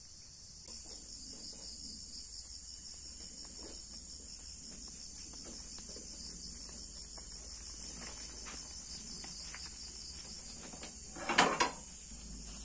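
Insects, crickets or cicadas, making a steady high-pitched drone with a fast pulsing texture. Two loud sharp knocks come close together near the end.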